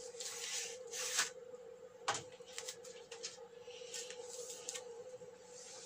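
Plastic-wrapped bundle of new LED backlight strips being handled with crinkling rustles, then set down on the TV's bare steel backlight tray with a single knock about two seconds in. A steady faint hum runs underneath.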